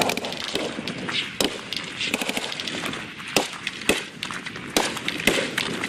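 Scattered small-arms gunfire from several weapons on a live-fire range: irregular shots, a handful of loud close reports standing out among many fainter distant ones.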